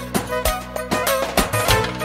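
Manele song playing: a syncopated drum beat over sustained bass notes, with a lead melody of small pitch bends and ornaments.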